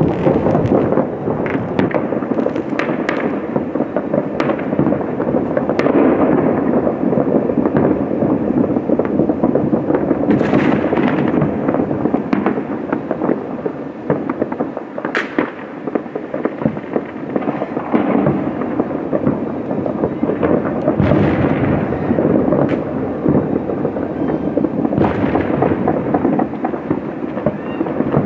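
Fireworks display: a dense, continuous rumble of many overlapping bursts, with sharper, louder cracks standing out every few seconds.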